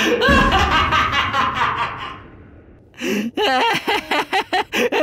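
A cartoon wolf character's gloating laugh: a rapid run of short 'ha-ha' bursts that starts about three seconds in, after the sounds before it fade away.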